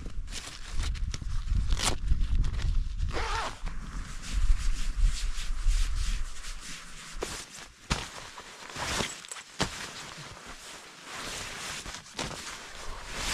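Nylon tent fabric rustling and scraping, with small knocks and clicks as a trekking pole is set in place inside the tent to brace its frame. A low rumble runs under it and drops away about six seconds in.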